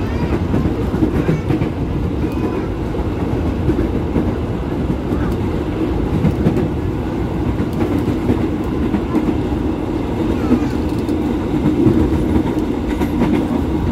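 KRL Commuterline electric train with IGBT-VVVF traction, heard from inside the car while running at speed: a steady rumble of wheels on the rails and the running gear.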